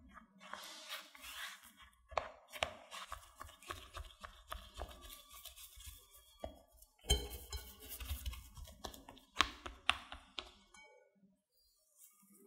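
Silicone spatula mixing and pressing crumbly mashed potato and cornstarch into a dough in a glass bowl: irregular scraping and soft knocks against the glass, dying away about eleven seconds in.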